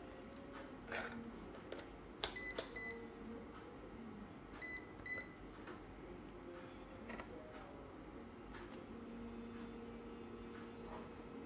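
Quiet room tone with a faint steady high whine. A sharp click and two short electronic beeps come a little over two seconds in, two more short beeps near five seconds, and a few light clicks.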